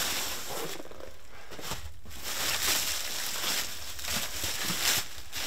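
Clear plastic wrap crinkling and rustling in uneven bursts as it is pulled off cushions.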